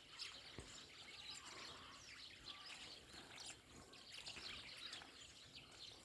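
Faint chirping of small songbirds at winter feeders: many short, high calls, often overlapping, scattered throughout.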